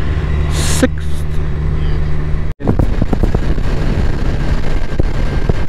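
Motorcycle engine running at a steady speed under wind and road noise while riding. About two and a half seconds in the sound drops out for a moment, and after that the steady engine note gives way to rougher wind and road noise.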